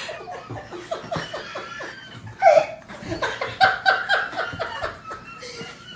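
A man laughing hard, a wheezing laugh of rapid breathy gasps, with louder bursts about two and a half and three and a half seconds in.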